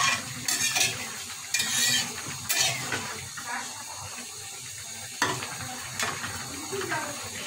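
Flat metal spatula stirring and scraping a thick, wet curry of beef tripe and Malabar spinach around a metal karahi, in irregular rough scrapes against the pan with a quieter stretch in the middle.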